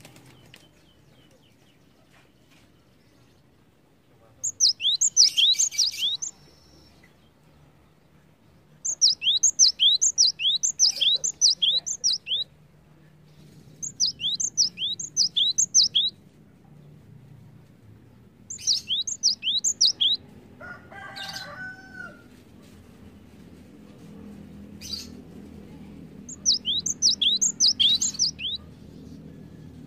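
Cinereous tit (gelatik batu) singing: five bursts of four to eight rapid, sharp repeated notes, each note a quick downward-sweeping whistle, with pauses of a few seconds between bursts.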